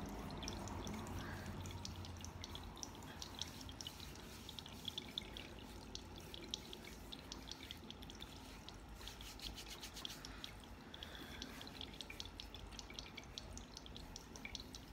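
Tabletop water fountain trickling, a light, irregular patter of drips over a steady low hum.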